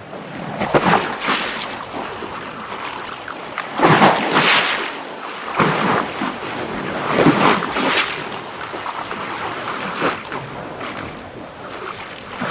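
Small waves lapping and splashing in irregular surges, one every second or two, the loudest about four seconds in.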